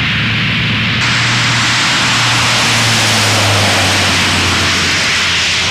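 C-130J Super Hercules taxiing with its four Rolls-Royce AE 2100 turboprops running: a loud, steady rush of propeller and turbine noise over a low propeller hum. The rush brightens about a second in, and the hum drops slightly in pitch past the middle.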